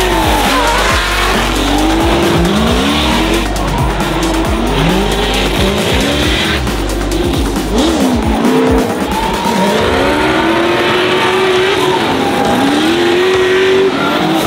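Drift car engines revving hard in repeated rising sweeps, about one a second, with tyres squealing as the cars slide.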